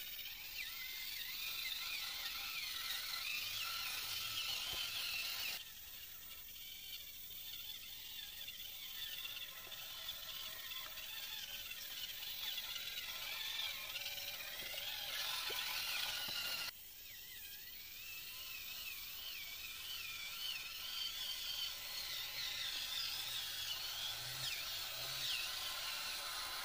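Whine of the electric motors and gears of FMS LC80 and K5 Blazer RC crawler trucks, rising and falling in pitch as the throttle changes, over a steady hiss. The sound cuts abruptly twice.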